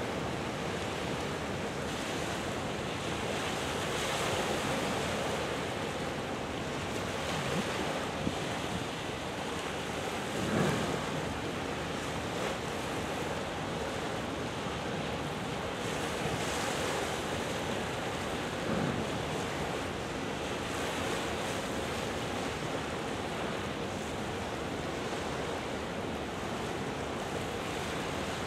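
Steady rush of wind and water: waves washing against the shore, with wind buffeting the microphone.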